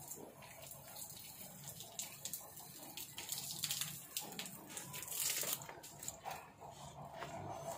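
Water spraying from a garden hose onto plants and ground: an uneven hiss with scattered small clicks.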